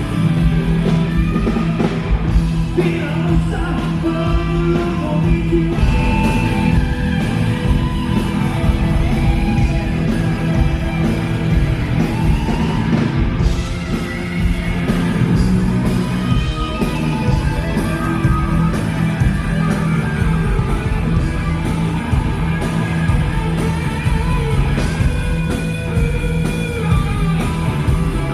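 A live rock band playing a song at a soundcheck, with singing over guitars, bass and drums.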